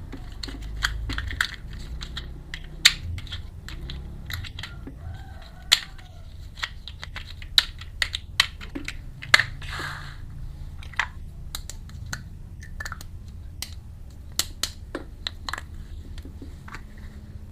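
Irregular light clicks and taps of small toy kitchen pieces being handled, with a brief rustle about ten seconds in.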